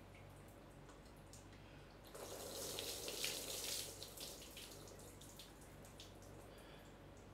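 Water poured from a plastic scoop over a clothed body, a splash that lasts about two seconds starting a couple of seconds in, with scattered drips falling onto the floor before and after.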